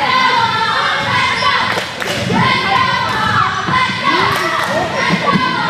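Children shouting and cheering during a youth basketball game, with a basketball bouncing and thudding on the hardwood gym floor, all echoing in the hall.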